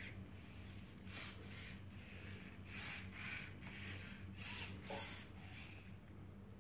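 Robi humanoid robot's servo motors whirring in short bursts as it walks backward step by step, about six bursts, mostly in pairs.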